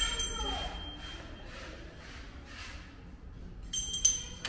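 Wrought-iron security gate clinking, metal on metal with a short ringing tone, as it is pulled open. It clinks again, louder, with several quick strikes near the end.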